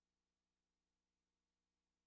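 Near silence, with only a faint steady hum and hiss.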